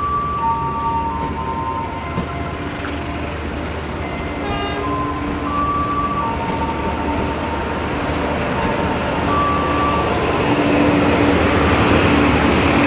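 A small tourist ride train running steadily, its rumble growing louder near the end. A faint melody in long held notes plays over it.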